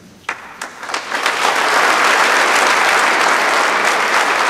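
Audience applauding: a few scattered claps in the first second quickly build into steady, full applause from a large crowd.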